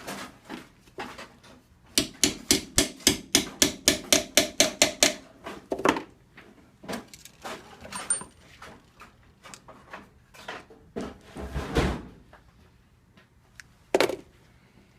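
Hammer tapping on metal: a quick, even run of about fifteen sharp taps, some five a second, each with a short metallic ring. Then scattered knocks and clunks follow, with one sharper strike near the end.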